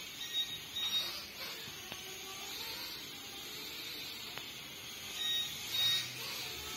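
Small toy quadcopter's tiny propellers and motors buzzing in flight with a high-pitched whine, swelling louder a few times, about half a second in, at one second, and twice near the end.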